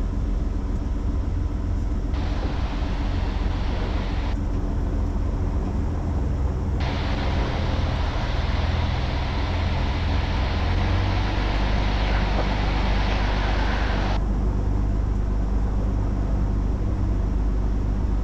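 Van's RV-10's piston engine and propeller running steadily at high power during the takeoff run, heard through the cockpit intercom as a constant low drone. A brighter hiss of cabin noise cuts in and out twice, for a couple of seconds and then for about seven.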